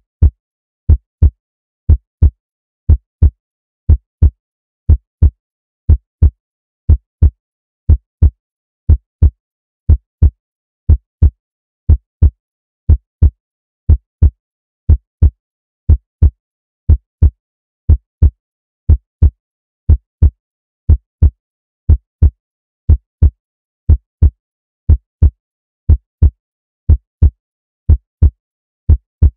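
Heartbeat sound effect: deep lub-dub thumps in evenly spaced pairs, about one pair a second.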